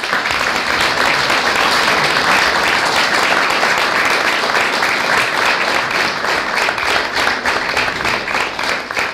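A room of people applauding after a speech: dense applause that thins toward the end into separate, distinct claps.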